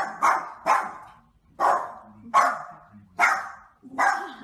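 A small white dog barking repeatedly at a cheetah on a television screen: about seven sharp barks, a quick few at first, then about one a second.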